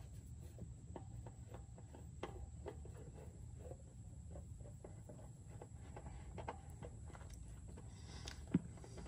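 Faint scattered clicks and light scrapes of a hand working a spin-on oil filter loose, over a low steady rumble, with one sharper knock near the end.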